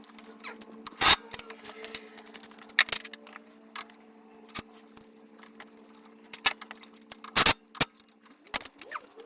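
Irregular metallic clinks and knocks of hand tools working on a snowmobile's skid and track adjusters, with three louder clanks, over a steady hum that stops near the end.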